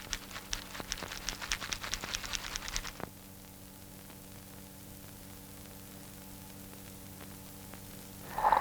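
A quick run of light taps, about six a second, lasting about three seconds. After that there is only the faint steady hum of an old film soundtrack.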